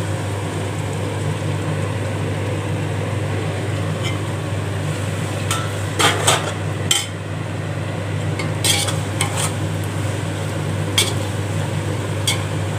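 A perforated metal skimmer stirring chopped tomatoes through hot oil in a large metal pot, scraping along the pot with several sharp knocks against its side from about halfway through, over a steady low hum.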